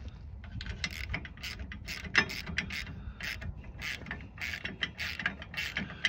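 Socket ratchet clicking in quick, irregular runs as it snugs down a 7/16 bolt on a snowplow hitch latch.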